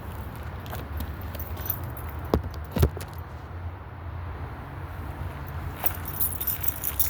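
Small metal objects jingling and clinking, like keys or hand tools being handled or carried, with two sharp knocks a couple of seconds in, over a steady low rumble.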